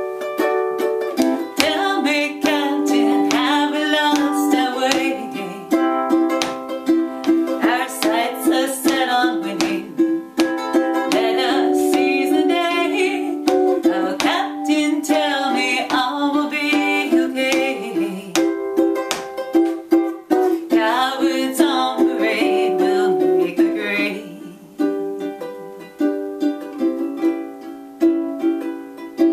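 Ukulele strumming steady chords in an instrumental passage of a song, with a wavering melody line carrying heavy vibrato over it in several phrases.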